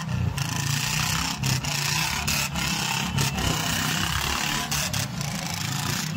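Several motorcycles riding together at close range, their engines running steadily with road noise.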